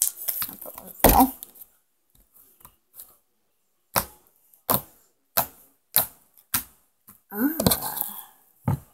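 Freshly made slime worked by hand for a clicking test: a thump about a second in, then a string of sharp clicks and pops, about one every two-thirds of a second, from air pockets being pressed out, with a longer, louder noise and one more click near the end.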